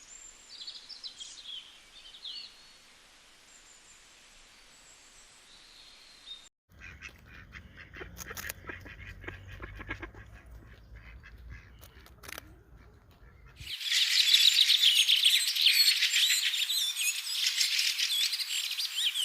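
A run of separate bird-sound clips: first a few scattered chirping calls, then about seven seconds of a different, quieter clip with clicks over a low hum, then a loud, dense chorus of many birds chirping at once.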